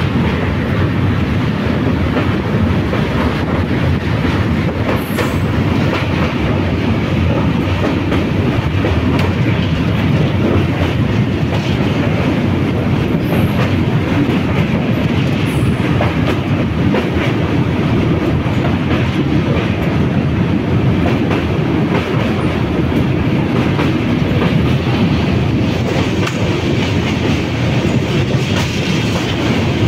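Passenger train coaches running at speed: a steady loud rumble of wheels on the rails with a clickety-clack of rail joints, heard from an open coach doorway.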